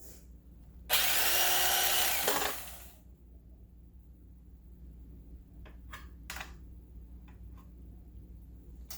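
Electric carving knife running for about a second and a half, then slowing down as it is switched off. A few light knocks follow a few seconds later.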